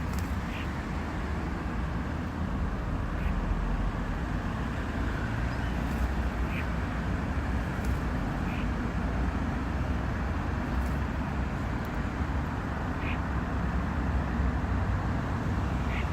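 Steady low rumbling noise, with faint short bird calls every few seconds.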